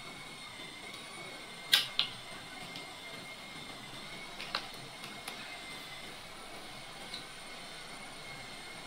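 A few sharp clicks and knocks of handling, the loudest two close together about two seconds in and fainter ones later, over a steady hiss with a faint high whine.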